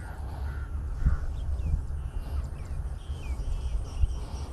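Birds calling: a scatter of short, downward-sliding chirps and brief calls, over a steady low rumble.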